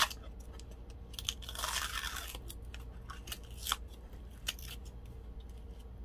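A plastic glitter jar being opened: a sharp click as the lid comes off, then a crinkly tearing from about a second in as the seal is peeled off the rim, followed by a few light clicks as the open jar is handled.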